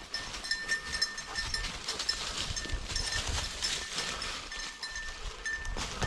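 Bell on a bird dog's collar ringing in quick, uneven jingles as the dog moves through cover, over light rustling of brush.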